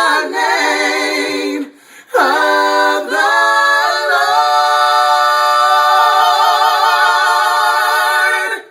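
Small a cappella vocal group singing in harmony: a short phrase, a brief breath, then a long held final chord with vibrato that the voices cut off together near the end.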